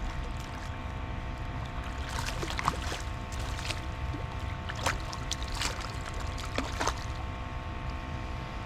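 Small boat's motor humming steadily on the water, with a few short, sharp sounds between about two and seven seconds in.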